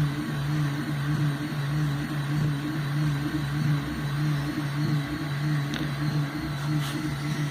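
Stepper motors of a small laser CNC engraver humming as the gantry moves, a low hum that pulses about twice a second as the head runs back and forth.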